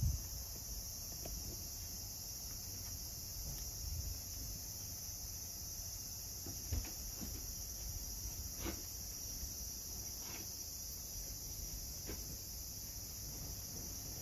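Steady high-pitched chorus of insects, likely crickets, with a few faint light knocks over it.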